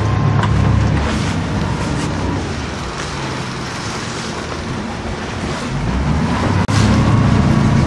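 Work boat's engine running with a steady low hum under wind and water noise. It eases off about a second in and picks up again near the end as the boat comes alongside a net pen.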